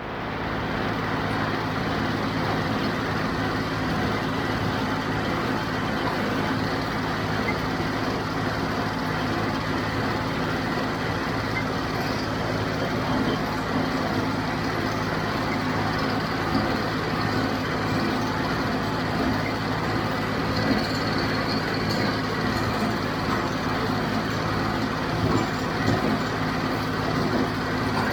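Diesel tractor engine running steadily under a constant mechanical clatter.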